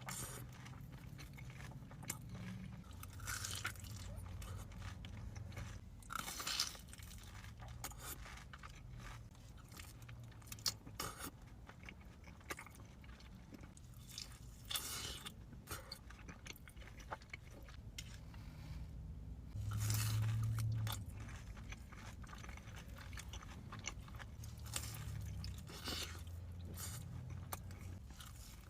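Close-miked eating: repeated crunchy bites and chewing of fried food. A brief low hum about two-thirds of the way through is the loudest sound.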